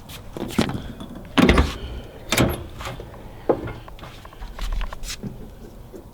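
Several separate sharp clicks and knocks, spread a second or so apart, from interior trim pieces being handled and fitted on a car door.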